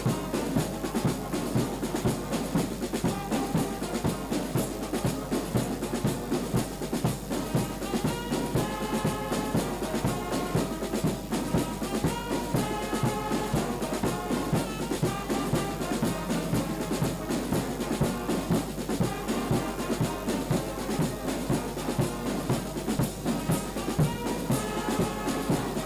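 Brass band music with drums: trumpets and trombones playing held melodic notes over a steady drum beat.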